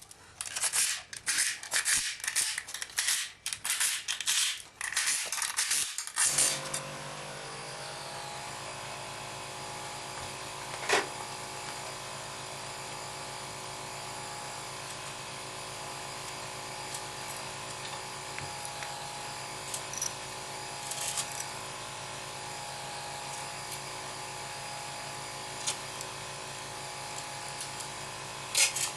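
Handling noise, clicks and rustling for about six seconds, then a small electric motor, as in a hand power tool, starts and runs steadily at an even pitch, with a few single clicks over it.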